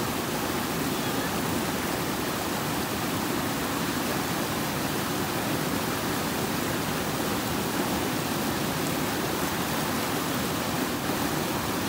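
Monsoon-swollen river water rushing steadily over and between boulders below Dudhsagar Falls, a constant even rush of white water with no breaks.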